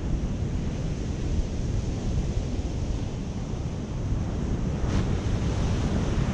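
Surf breaking and washing up a sandy beach, with steady wind rumbling on the microphone.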